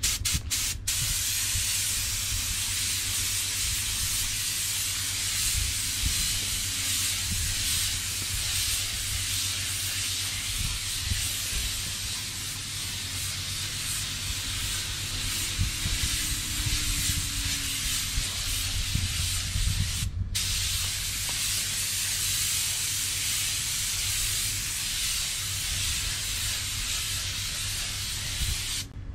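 Air-fed paint spray gun hissing steadily as paint is sprayed onto a car's plastic bumper, with one short break about twenty seconds in. A steady low rumble runs underneath.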